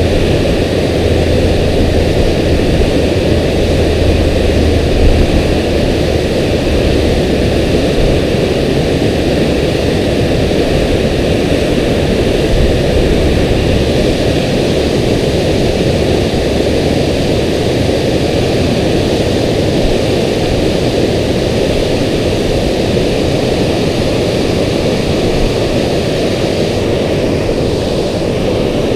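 Loud, steady roar of water pouring over a dam spillway.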